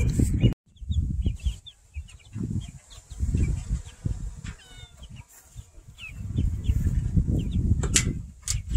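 Gusts of wind rumbling on the microphone, with small birds chirping faintly in the background. There is a brief dropout about half a second in.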